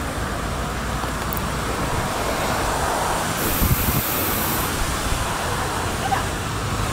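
Steady wind noise on the microphone, a low rumbling haze, with a few low thumps a little past the middle.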